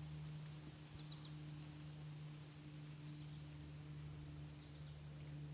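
Insects trilling high and steady in an outdoor field, with a few short chirps, over a faint steady low hum.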